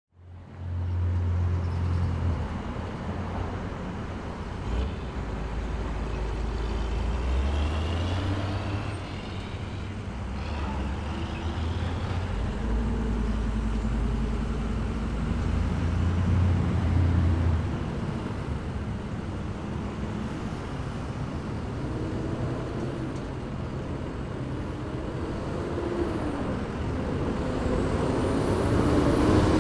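Street traffic with a heavy vehicle's engine running, its low rumble shifting in pitch, swelling louder near the end.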